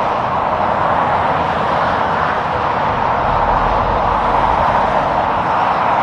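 Steady, loud roar of highway traffic: tyre and engine noise.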